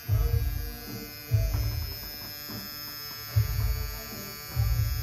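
Pen-style tattoo machine buzzing steadily as it needles ink into the skin, with loud low thumps every second or two.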